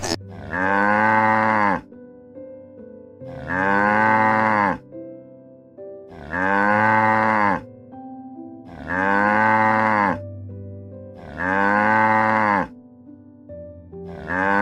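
A cow mooing six times, about every two and a half seconds. Each moo lasts about a second and a half and rises then falls in pitch. Soft music notes sound in the gaps.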